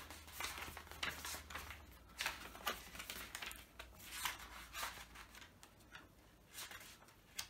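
Paper pages of a diary being leafed through by hand: about a dozen soft flicks and rustles at an irregular pace.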